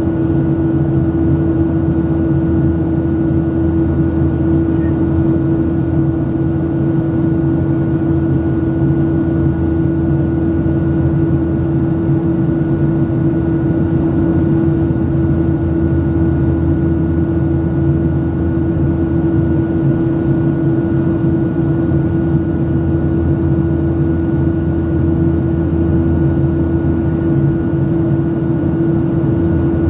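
Steady drone of a Boeing 737-700's CFM56-7B jet engines heard from inside the cabin: an even rumble with a held low hum and a fainter high whine over it, unchanging throughout.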